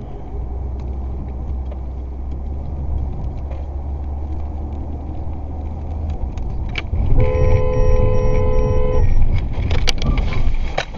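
Road and engine rumble heard from inside a car's cabin, with a car horn held for about two seconds a little past the middle as a truck cab swerves in close alongside: a warning honk. A run of light clicks follows near the end.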